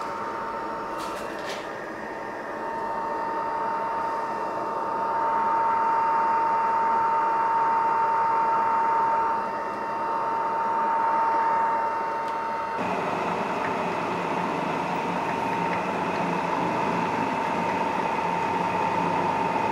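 Workshop machine running with a steady high whine over a rough mechanical noise. About two-thirds of the way through a lower, heavier running noise joins.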